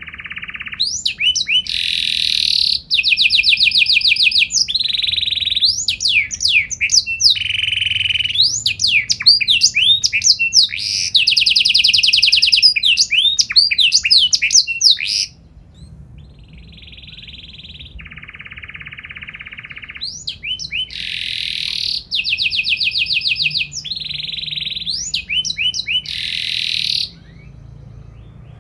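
Domestic canary singing a long song of fast trills, rapid repeated notes and sweeping whistles. About halfway through the song drops to a few quieter phrases, then comes back loud before falling away near the end.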